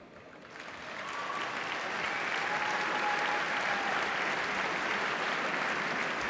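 Large audience applauding, building up over the first second and then holding steady.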